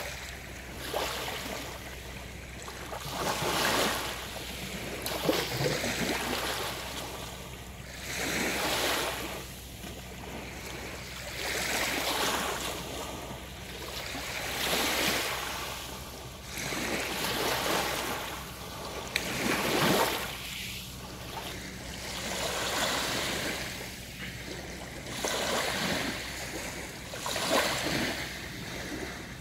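Small sea waves breaking and washing onto the shore, each swell rising and fading every few seconds.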